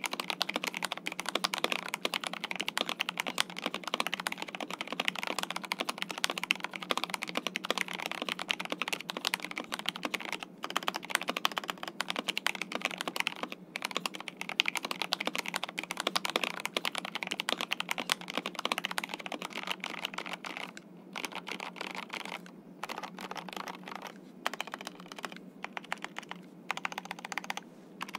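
Typing on an Epomaker TH66 mechanical keyboard fitted with factory-lubed Gateron Pro Brown tactile switches: a quick, continuous stream of keystroke clacks that thins out into slower, scattered keystrokes in the last several seconds.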